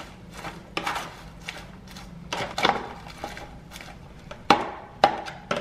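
A metal fork tossing salad leaves inside a clear plastic clamshell container: irregular rustling of leaves and sharp clicks and scrapes as the fork knocks against the plastic.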